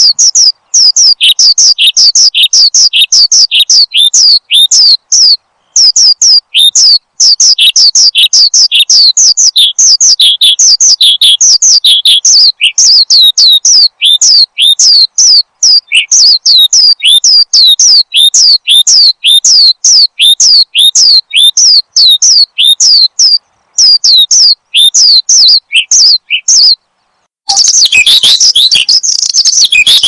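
Horsfield's bush lark (branjangan) singing loudly and continuously: a fast string of short, sharply falling high notes, about three or four a second, broken by brief pauses. Near the end the song stops for about a second, then resumes as a denser, more tangled run.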